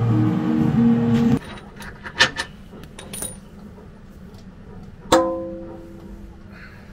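Guitar music that cuts off about a second and a half in. Then a few light metal clinks, and a sharp clang with a ringing tone about five seconds in: a welded tubular steel skid plate knocking against the Jeep's underside as it is offered up into place.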